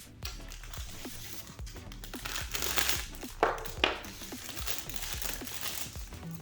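Thin plastic parts bag of a model kit crinkling as it is handled and opened, louder in the middle with two sharp crackles about three and a half and four seconds in.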